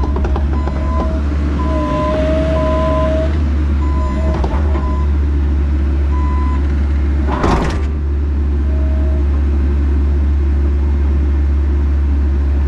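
Bobcat E85 excavator's diesel engine running steadily while the machine tracks onto the trailer, with its travel alarm beeping on and off. A short burst of noise about seven and a half seconds in.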